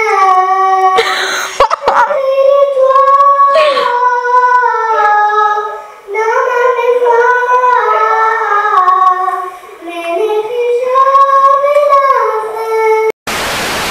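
A young girl singing a French pop song in a home-video recording, holding long notes that slide between pitches. Near the end it cuts to a short burst of hiss.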